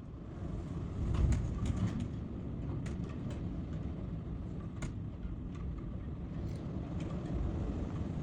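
Strong wind buffeting the microphone in a low rumble, gusting hardest about a second in, with scattered light clicks and rattles.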